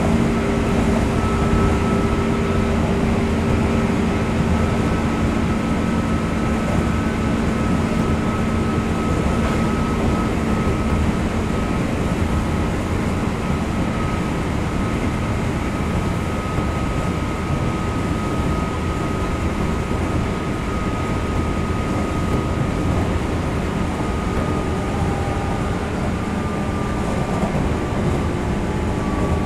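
JR 201 series electric commuter train running between stations, heard from inside the car: steady wheel and rail rumble with faint, even whining tones from the traction equipment, one of them dipping slightly in pitch near the end.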